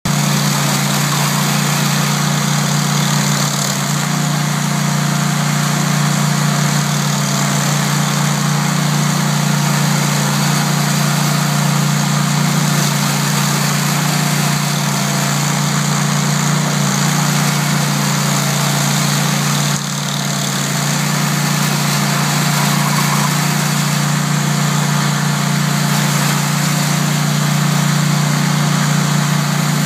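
Toro STX26 stump grinder running steadily at a constant engine pitch, with a brief dip in level about twenty seconds in.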